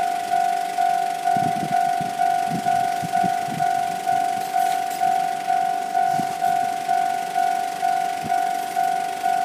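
Japanese railway level-crossing warning bell ringing, an electronic clang repeating at a steady pace of about two strikes a second, each note dying away before the next. It signals that the crossing is closed for an approaching train.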